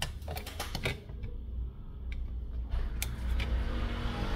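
Light clicks, taps and rustles of a thin plastic phone back cover and small pieces of double-sided tape being handled and turned over. The clicks come in a quick cluster in the first second, then a few single ones.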